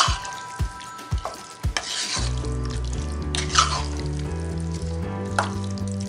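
Background music with a steady beat and bass line, over a wooden spatula stirring chicken pieces in thick masala in a pot, giving a few brief scrapes.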